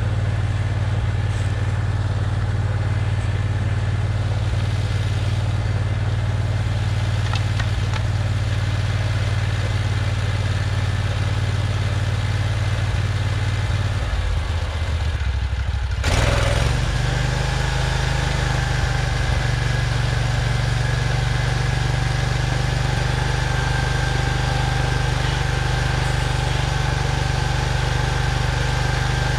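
Portable bandsaw sawmill's gas engine running steadily. About sixteen seconds in there is a clunk and the engine settles into a new, steady note with a thin whine added, as the mill is put to work.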